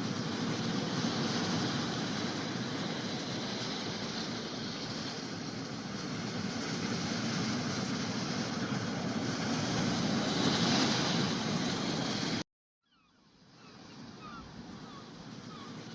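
Steady rush of wind and sea on open water. It cuts off abruptly about twelve seconds in, and after a brief silence a quieter rush of wind and water fades back up.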